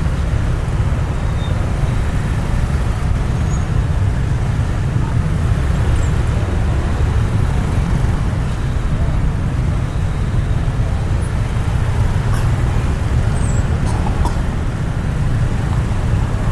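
Steady low rumble of jammed road traffic, many vehicle engines running close by as the traffic crawls.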